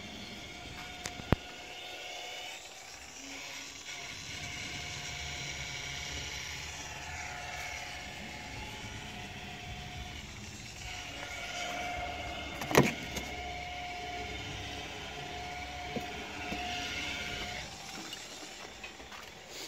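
Volkswagen 1.6 TDI (CAY) four-cylinder common-rail diesel engine idling steadily in the open engine bay. A sharp click comes about a second in and a single loud knock about thirteen seconds in.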